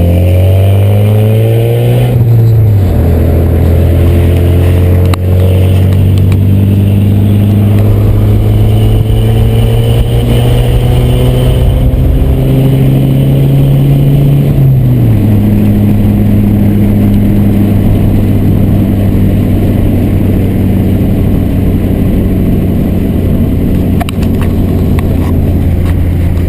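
VW Santana's AP 2.0 four-cylinder engine pulling on the road. The revs climb for the first two seconds, fall suddenly as it shifts up, climb slowly again, and fall once more with another upshift about fifteen seconds in. After that it holds a steady cruising note.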